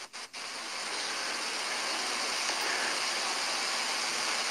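Steady rushing hiss of background noise on a phone video-call line. It cuts out twice very briefly at the start, then swells slightly and holds steady.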